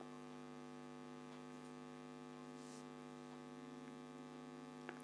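Faint, steady electrical hum with a stack of even overtones, unchanging throughout, with a tiny click near the end.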